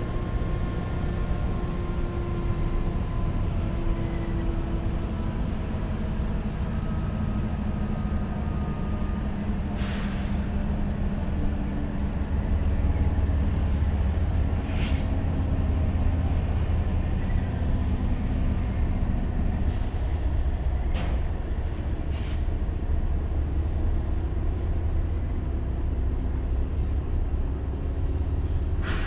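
A long consist of BNSF diesel-electric locomotives rolling slowly past, their engines running with a low steady rumble and several engine tones that shift in pitch. A few sharp clanks are scattered through.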